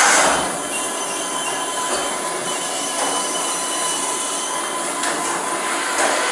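Loud, steady mechanical noise with a high, metallic whine in it, starting suddenly.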